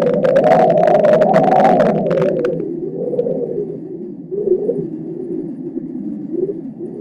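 Foehn storm wind gusting over the microphone: a loud, wavering rumble with crackle that is strongest for the first two and a half seconds, then eases into weaker gusts.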